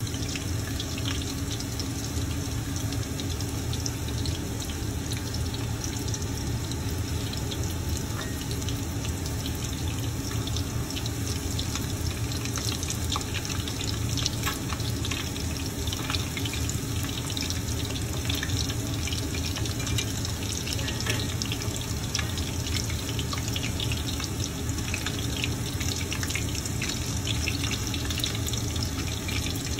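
Shami kabab patties shallow-frying in hot oil in a cast-iron skillet: a steady sizzle with constant small crackles and pops.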